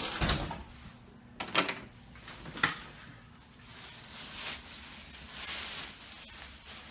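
A dull thump, then two sharp knocks about a second apart, followed by quieter handling noise.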